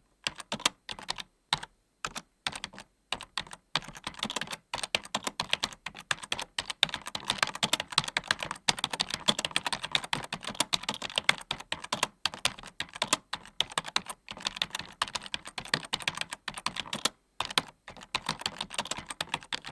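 Typing on a computer keyboard: rapid, irregular key clicks, a few scattered keystrokes with pauses at first, then continuous fast typing.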